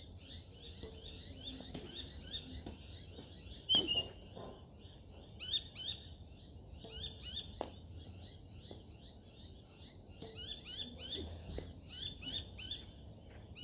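Birds chirping in a dense, steady chorus, with a few sharp taps of badminton rackets hitting a shuttlecock, the loudest about four seconds in.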